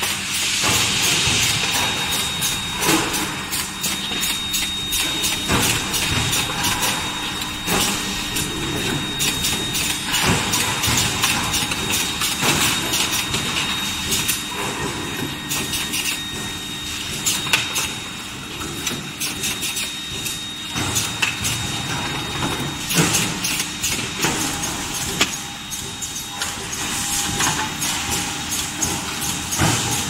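Forging-line noise from an induction bar-heating furnace and its presses: a steady high whine over a low hum and hiss, broken by frequent metallic clanks and knocks.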